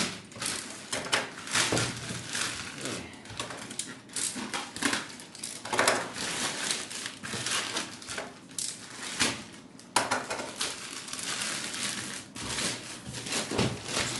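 A shipping package being handled and opened: irregular crinkling, rustling and scraping of cardboard and plastic packing.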